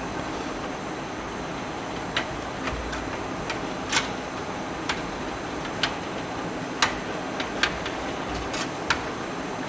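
Light, irregular clicks and taps of plastic SATA cables and connectors being handled and routed inside a computer case, about a dozen in all, over a steady background hiss.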